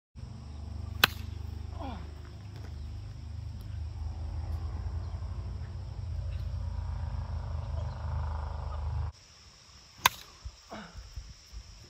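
Low wind rumble on the microphone, broken by a sharp crack about a second in. After an edit the rumble drops away, and near the end comes another sharp crack: a plastic wiffle ball bat hitting the ball.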